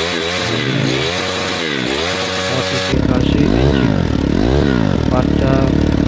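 Turbocharged Yinxiang motorcycle engine being revved repeatedly, its pitch rising and falling about once a second. About halfway through the sound changes abruptly to a fuller, deeper take of the same revving.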